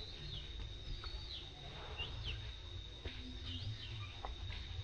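Forest ambience: scattered short, high chirps and squeaks, several in quick pairs, over a steady high-pitched whine and a low rumble.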